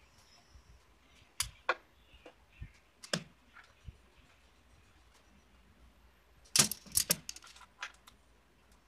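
Sharp metallic clicks and clinks as a metal part is handled and set against a Hyundai Starex automatic transmission case: a few single knocks, then a quick loud flurry about two-thirds of the way through.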